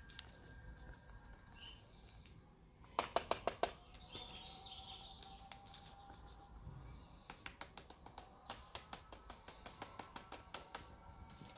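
A plastic spatula clicking against a painted ceramic mixing bowl as baking powder is worked into a crumbly dough: a quick burst of about six clicks around three seconds in, then a run of regular taps, about four a second, in the second half.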